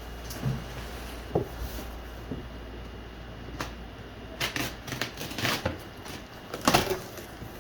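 Cardboard box and packaging being handled and worked open: scattered rustles, scrapes and knocks, with a cluster of louder scrapes past the middle and one more near the end.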